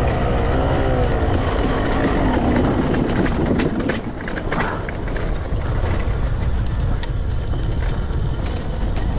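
Yamaha YZ250X single-cylinder two-stroke dirt bike engine under way, its revs rising and falling with the throttle, then dropping off about four seconds in and running on at lower revs.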